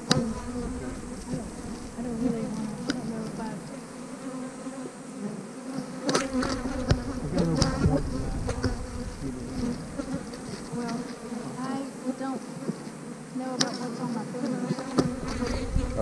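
Honeybees buzzing around an open hive: a steady hum at an even pitch from many bees flying close by, with a low rumble coming and going and a few short clicks.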